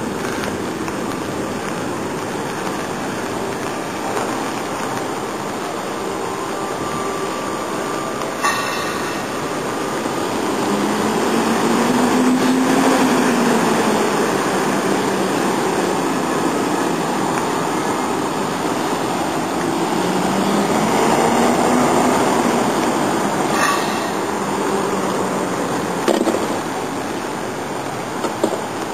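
Steady city street traffic noise, with two heavy vehicles passing by, one after the other: each swells over a few seconds with a low engine note that rises and then falls. A few brief knocks are heard along the way.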